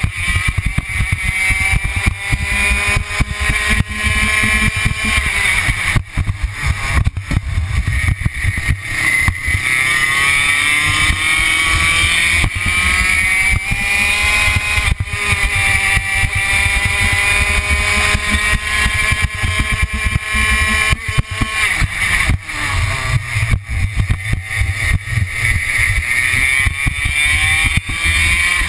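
Two-stroke racing kart engine heard on board under hard acceleration: its revs climb several times along the straights and drop back as the kart slows for corners.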